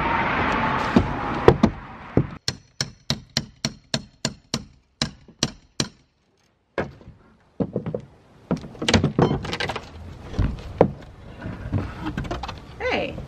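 Old wooden roof decking being torn out with a pry bar and hammer. Cracking and scraping wood comes first, then a quick run of ringing hammer blows on metal, about three a second. Irregular knocks and a creak follow near the end as boards are levered loose.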